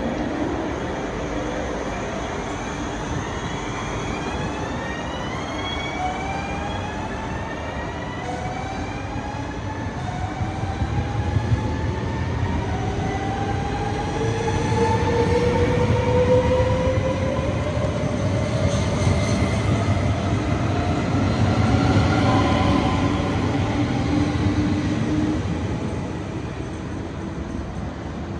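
Double-deck electric passenger train pulling out: its traction motors give several whines that rise steadily in pitch as it gathers speed, over the rumble of wheels on the rails. The rumble grows louder about halfway through.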